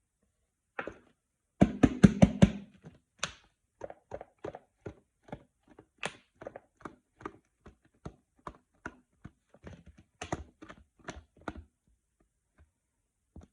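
Hard objects being knocked and handled: a quick run of loud thuds about two seconds in, then sharp taps and knocks two or three a second that stop shortly before the end.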